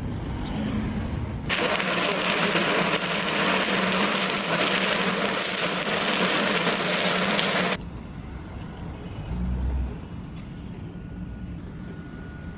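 Welding arc crackling and sizzling steadily for about six seconds, striking up abruptly and cutting off suddenly, with a low background rumble before and after.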